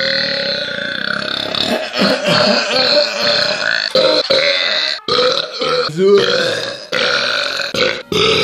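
Long, drawn-out human burps, loud and throaty. A single sustained belch runs for about five seconds, then shorter belches follow, broken off abruptly by sudden cuts about every second.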